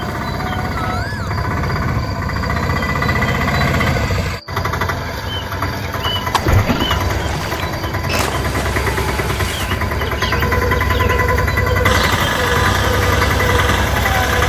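Auto-rickshaw engine puttering with a fast, even knocking rhythm, cutting out briefly about four seconds in.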